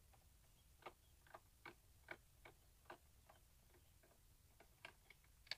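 Faint, irregular small clicks of a long screwdriver working the screws of a motorcycle tail-light lens, about two or three a second.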